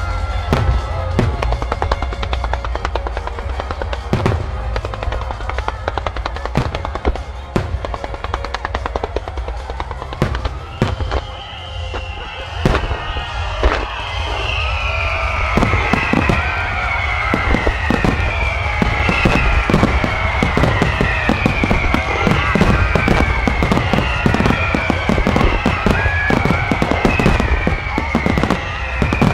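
Aerial fireworks shells bursting in quick succession, a stream of sharp bangs and crackles that grows denser through the second half into a barrage, with music playing alongside. From about ten seconds in, a falling tone repeats roughly once a second.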